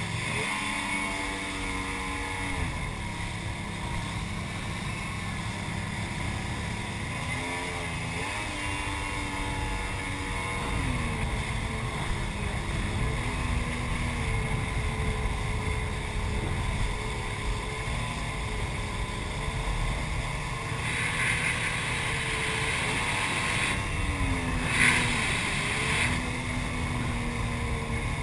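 Jet ski engine running at speed, its pitch rising and falling with the throttle, over a steady rush of water and wind. There are two louder bursts of hiss near the end.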